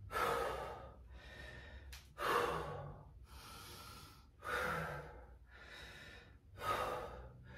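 A person breathing deeply and audibly: four slow, full breaths about two seconds apart, each with a fainter breath between, while recovering during a rest between exercises.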